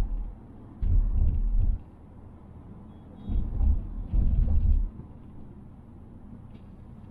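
Cabin noise of a 2020 Mazda Atenza 2.5L on the move: a steady low road rumble with three heavier low rumbling bursts, each under a second long, and a few faint light clicks. The clicks are typical of the interior trim rattle this car makes whenever the body shakes.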